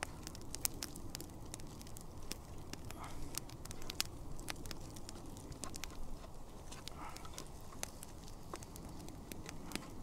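Campfire crackling, with many irregular sharp pops, while a wooden spatula stirs scrambled eggs in a small frying pan set over the fire.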